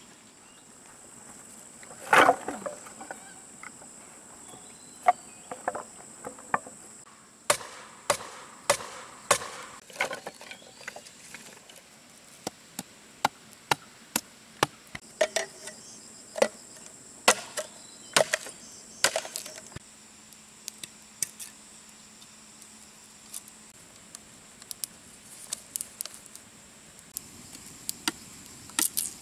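Dry sticks cracking, snapping and knocking together as firewood is broken and piled, in a long string of sharp separate cracks; the loudest comes about two seconds in. Insects buzz in a steady high pitch behind it, strongest in the first few seconds.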